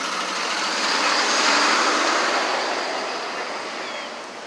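A vehicle passing by: a rushing noise that swells to its loudest about one and a half seconds in, then fades away.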